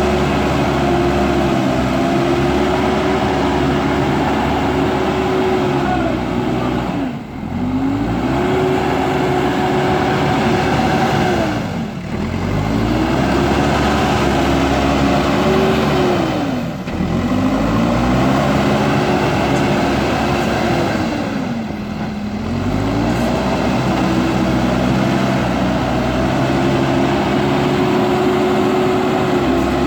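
JCB backhoe loader's diesel engine running hard under load. Its pitch holds high, then drops and climbs back about every five seconds, four times, and falls again at the very end.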